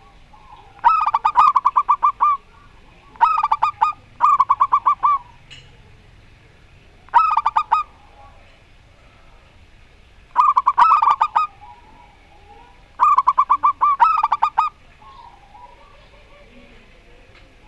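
Zebra doves (perkutut) cooing back and forth: about seven bouts of rapid staccato coos, each a second or so long, with pauses of a second or more between them. Fainter small-bird chirps run underneath.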